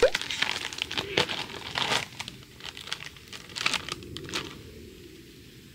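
Plastic snack bag crinkling as it is opened and handled, a run of sharp crackles that thins out and stops about four and a half seconds in.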